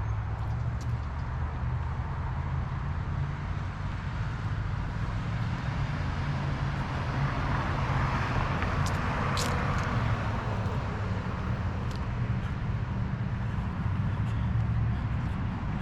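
Street traffic: a steady low rumble of vehicles, with a broad swell as one passes a little past the middle, and a few faint high ticks.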